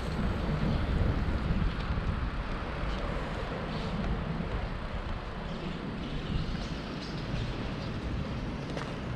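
Wind rushing and buffeting on the microphone of a camera riding on a moving bicycle, a steady low rumble that eases a little after the first few seconds.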